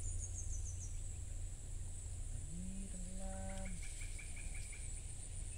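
Forest-edge ambience: a steady high insect drone, with quick runs of repeated bird chirps. About two and a half seconds in comes a single low drawn-out animal call lasting about a second.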